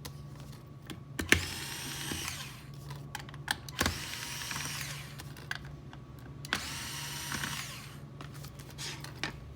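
Power drill-driver backing out screws in three short runs of about a second each. Between the runs there are small clicks and handling knocks.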